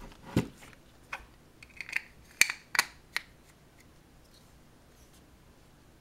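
A run of sharp clicks and knocks from camera gear being handled out of shot, about six in the first three seconds, then quiet for the rest.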